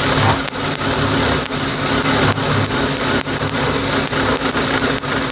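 Industrial sewing machine starting up and running steadily with a constant hum, stitching a seam along a folded fabric strip.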